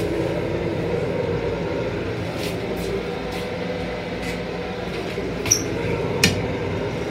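Steady hum and rumble of a Long Island Rail Road M7 electric railcar, heard inside its small restroom, with a few faint clicks. A brief high squeak comes about five and a half seconds in, and a sharp click just after six seconds.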